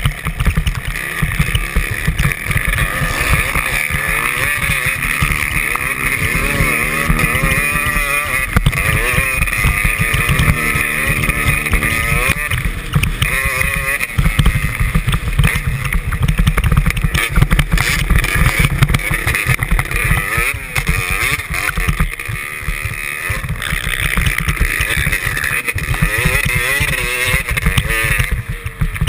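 Motocross motorcycle engines running hard and revving up and down, with wind buffeting the microphone. The engines are towing skiers on ropes over a snowy race track.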